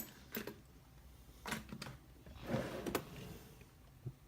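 Hands rummaging for a padlock: a handful of light, spaced-out clicks and knocks.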